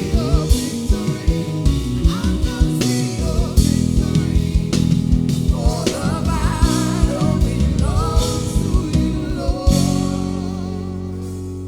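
Worship band playing: drum kit and bass with sustained keyboard chords, and a singer's wavering, wordless melodic line. The drums stop near the end, leaving a held chord.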